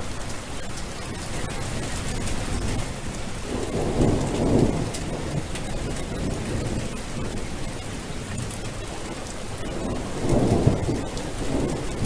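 Steady rain falling, with two low rolls of thunder, one about four seconds in and another near the end.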